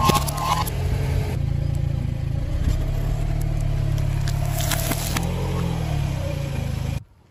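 A car engine running steadily as its tyre rolls over and crushes objects, with sharp crunching and crackling near the start and again about five seconds in. The sound cuts off suddenly about seven seconds in.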